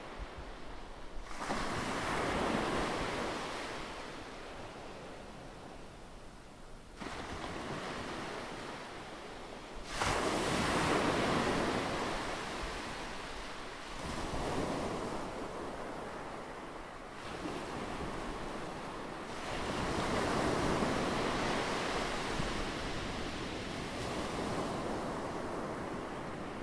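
Rushing, surf-like noise that swells and ebbs in waves every few seconds, with no voice.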